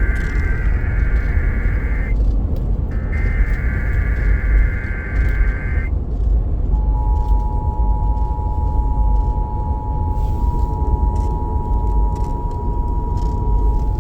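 Emergency Alert System test over a car radio. The last two bursts of the warbling digital SAME header tones end about six seconds in, separated by a one-second gap. About a second later the steady two-tone EAS attention signal starts and holds. Car road rumble runs underneath.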